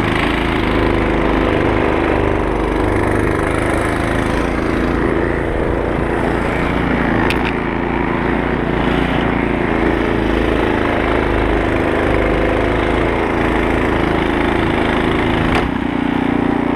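Poulan Pro 24-inch snow thrower's 208cc Briggs & Stratton engine running steadily as the machine is driven along. Two short clicks come, one about midway and one near the end.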